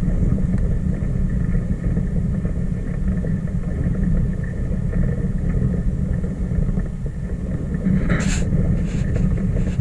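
Steady low rumble of wind buffeting the microphone, with a brief hiss about eight seconds in.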